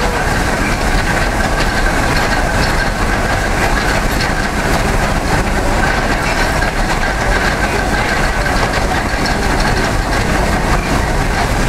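Pony-powered sweep and its drive gearing turning an ice cream freezer: a steady mechanical clatter and rumble with a steady whine over it.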